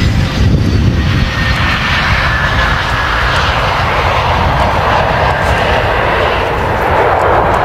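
Jet engines of an SR-71 Blackbird passing low overhead: a loud, steady rushing jet noise, with a faint whine that slides slowly down in pitch.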